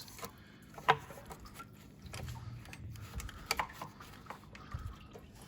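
Metal thermostat housing being wiggled loose and lifted off an engine: light scraping and crunching from the crusty gasket joint, with two sharp knocks, one about a second in and another a few seconds later.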